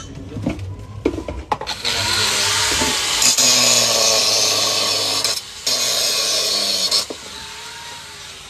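Handheld angle grinder cutting into the metal side of a frying pan, throwing sparks. A couple of knocks come first. The grinding starts about two seconds in, breaks off for a moment, then runs again until about seven seconds in.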